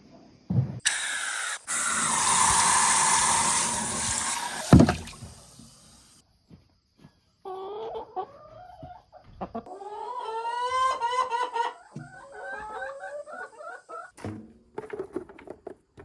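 Farm animal calls. A loud harsh call with a falling pitch runs for about three and a half seconds, followed by a sharp knock. Then comes a series of quavering pitched calls.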